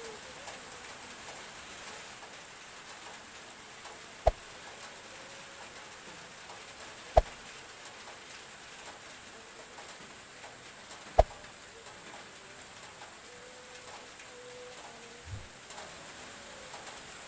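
Steady hiss of light rain falling, broken by three sharp, loud taps spaced about three to four seconds apart.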